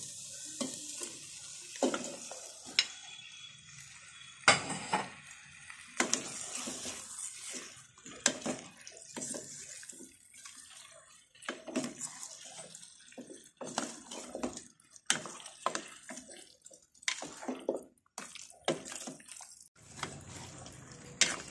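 Raw chicken pieces scraped from a ceramic bowl into a metal pot of fried spice paste and potatoes, then stirred: irregular clicks and scrapes of the spatula against bowl and pot, with wet sloshing of the meat and a faint sizzle.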